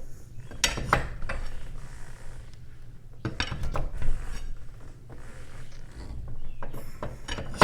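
Steel winding rods clinking and knocking against a garage door torsion spring's winding cone as the spring is wound up by hand, a few separate sharp metal clinks.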